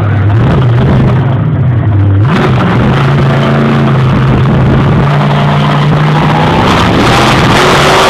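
Loud monster truck engine revving: the pitch wavers up and down, climbs sharply about two seconds in, then holds high under full throttle.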